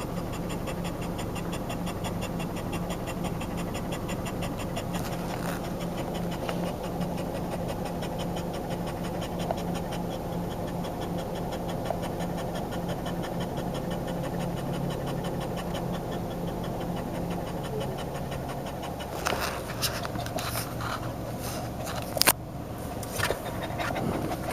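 Boston Terrier panting rapidly and steadily, tired out from running. A few sharp clicks or knocks come near the end, one of them louder.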